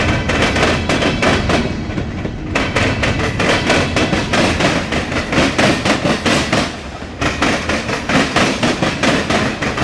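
Norfolk Southern mixed freight train's cars rolling past, steel wheels clacking over rail joints in a dense, continuous run of metallic clanks over a low rumble. The clatter eases briefly about two-thirds of the way through, then picks up again.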